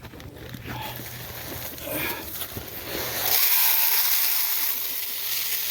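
Crushed oyster shell being poured into a container: a few light clicks and knocks, then from about three seconds in a loud, steady pouring hiss.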